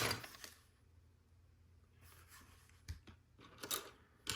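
Plastic Lego Technic pieces being handled while searching for a part: a short rustle and clatter at the start, then quiet, then small clicks and rustling near the end.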